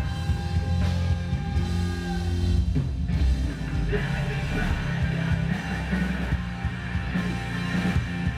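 Loud rock music playing steadily, a band with guitar.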